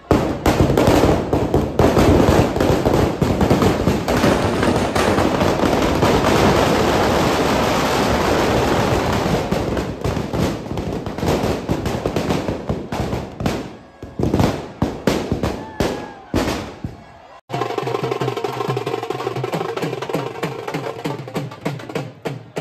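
Firecrackers packed inside a burning Ravana effigy going off in a dense, continuous crackle of bangs, thinning to scattered separate bangs after about thirteen seconds. After about seventeen seconds the sound cuts to music with drums and percussion.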